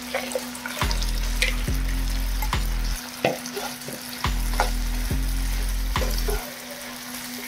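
Mushrooms being stirred into a thick chilli sauce in a pan: a spatula clicks against the pan about a dozen times over a sizzle. A low hum comes and goes in long stretches.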